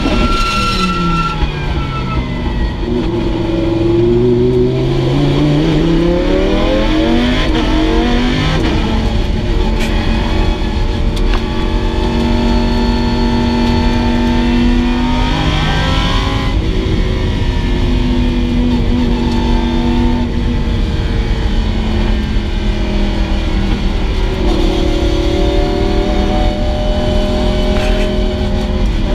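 Track-prepped Lamborghini Huracán's V10 engine heard from inside the cabin at track speed. The engine note falls for about four seconds, then climbs hard under acceleration, and later settles into long steady runs with occasional shifts in pitch. Heavy road and wind noise runs underneath.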